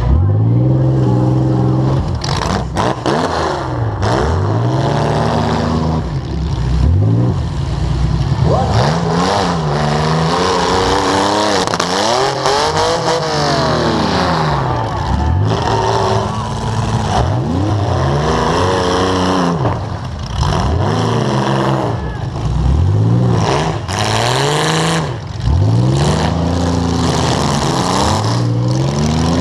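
Demolition derby car's engine heard from its onboard camera, revving up and dropping back over and over, roughly every two seconds, as the car is driven back and forth. A few sharp bangs come a few seconds in.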